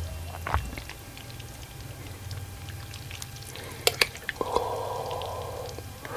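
A few sharp clinks of a spoon in a bowl and liquid sounds from a bowl of bakso soup, with a steady hiss of liquid during the last couple of seconds.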